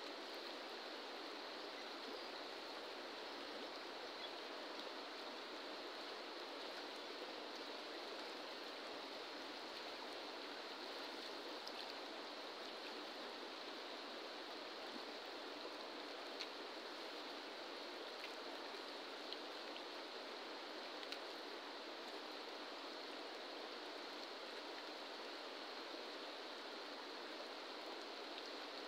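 Steady rush of a fast-flowing river, with a couple of faint clicks.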